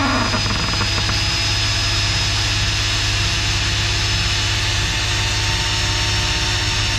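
Cordless drill running steadily with a high whine, a step bit cutting through the truck's sheet-steel rocker.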